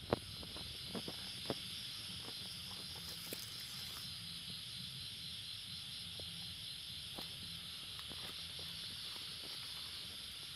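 Steady, high-pitched chorus of night insects such as crickets, with one pulsing quickly through it. A few sharp clicks in the first second and a half, the loudest at the very start, and scattered fainter ticks later.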